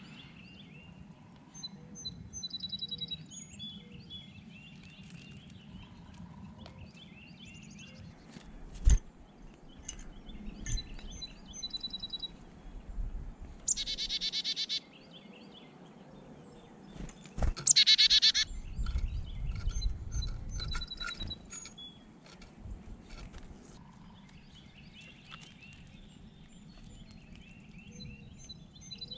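Wild songbirds chirping and calling, with two loud rapid runs of calls about halfway through. Two sharp knocks stand out, and there is a low rumble near the loudest call run.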